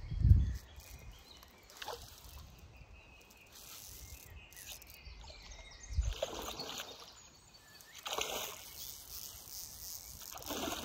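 Quiet lakeside ambience while a hooked carp is played, with a few short splashes from the fish at the surface. There is a single low thump at the very start.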